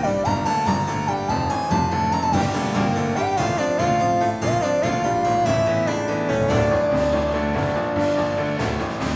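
Music: a keyboard-like lead melody stepping between held notes over a regular beat and bass.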